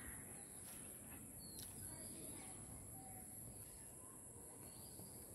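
Faint rural ambience: a steady high-pitched insect drone with a few short, faint bird chirps.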